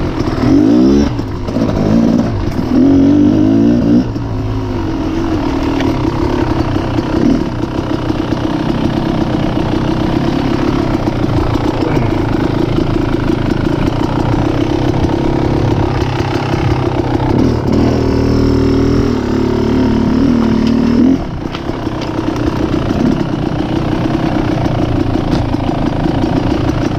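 Dirt bike engine running under load, its revs rising and falling as it is ridden. It revs harder in stretches near the start and again from about 18 to 21 seconds in, then eases off.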